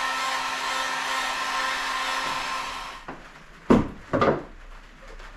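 Handheld electric heat gun blowing steadily as it heats a dent in a car tailgate. It cuts off about three seconds in, and two loud thumps about half a second apart follow.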